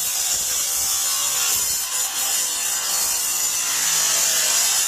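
A power tool running steadily, cutting into train wreckage.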